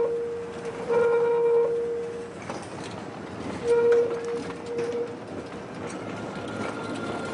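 A street tram passing, with rail and traffic noise and a few clicks. A held horn-like tone sounds three times at the same pitch, each about a second long.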